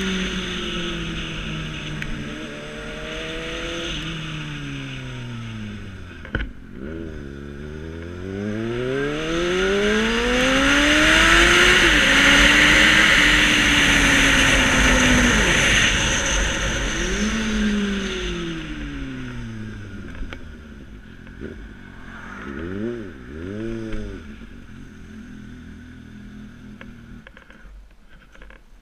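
Motorcycle engine heard from the rider's position: it slows, then accelerates hard with the pitch climbing and wind rushing over the microphone, eases off, gives a few quick throttle blips, and settles to a low, quieter running near the end.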